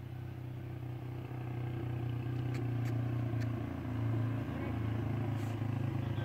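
Kuba Çita 150R motorcycle engine idling steadily on fresh oil just after an oil change, with a slight rise about four seconds in.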